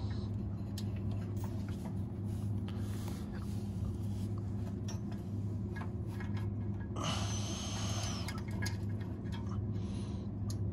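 A steady low hum, with scattered light clicks and a brief rustling hiss about seven seconds in as multimeter test leads are handled at the compressor's terminals.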